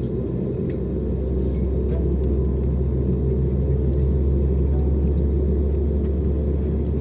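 Steady low rumble and hum of an Airbus A320neo heard inside the passenger cabin, engines running.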